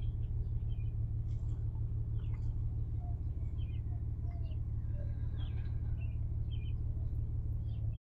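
Pickup truck's swapped-in engine running steadily as the lowered GMC Sierra drives slowly, heard from inside the cab, with faint short chirps and squeaks scattered over it.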